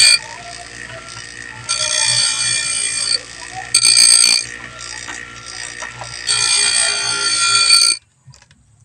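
Electric bench grinder running, its stone wheel grinding the cutter teeth of a chainsaw chain during sharpening: three long passes of loud, high-pitched grinding over the steady hum of the motor, with quieter running between. The sound cuts off about eight seconds in.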